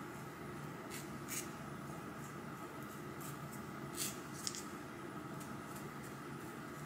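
Faint scraping and light dabbing of a wooden popsicle stick spreading thick hair-bleach paste over a wig's lace: a few soft, scattered strokes over quiet room tone.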